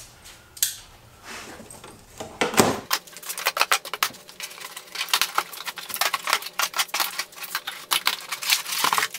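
A small knife slitting the packing tape on a cardboard shipping box and scraping along the cardboard. There are a few clicks at first, then from about three seconds in a fast, dense run of crackling scrapes and clicks.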